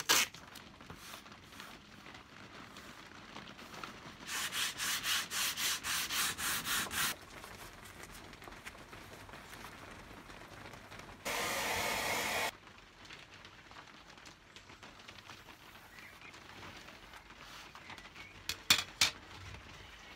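Hand sanding: sandpaper rubbed back and forth in quick even strokes, about five a second for some three seconds. Later comes a steady hiss of about a second.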